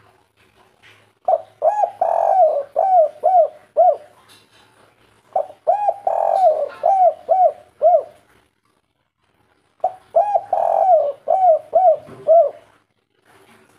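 Spotted dove singing its 'kuk 3' cooing song: three phrases, each a quick run of about seven rising-and-falling coo notes, with a pause of about a second and a half between phrases.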